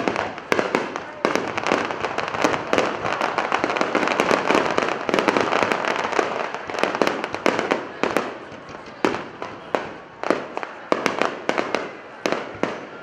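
Aerial firework shells bursting in quick succession: many sharp bangs over dense crackling. The bursts are thickest in the middle and thin out to scattered bangs near the end.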